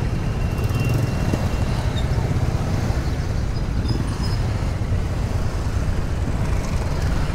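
Motorcycle riding slowly in heavy street traffic: the bike's engine and the surrounding cars and motorbikes make a steady low rumble.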